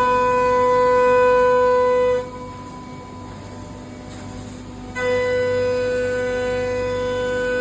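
Five-axis CNC milling machine cutting: a steady high-pitched whine from the cutter, with a constant lower hum under it. The whine breaks off about two seconds in, leaving the quieter hum for nearly three seconds, then comes back at the same pitch.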